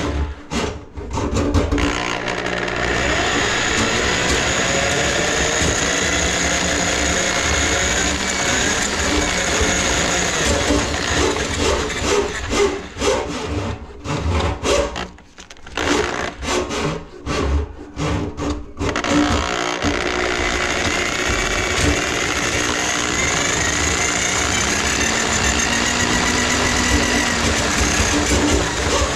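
A motor-driven drain-clearing machine running steadily to clear a grease-clogged kitchen drain line. Its pitch rises and falls slowly. Midway it is stopped and restarted in several short spurts before running steadily again.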